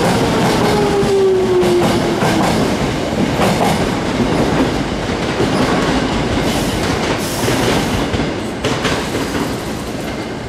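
Hankyu electric train running past a platform, its wheels clattering on the rails, with a whine that falls in pitch over the first couple of seconds. The train noise fades slowly toward the end.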